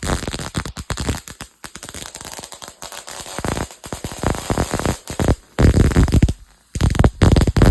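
Loud, rapid crackling snaps of high-voltage arcs about 7.5 inches long from a Cockcroft-Walton voltage multiplier fed by a ZVS driver and flyback transformer. The arcing breaks off briefly twice in the second half, then resumes.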